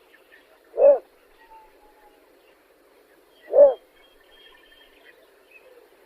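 A bittern giving short, low, hoot-like calls, twice, about two and a half seconds apart.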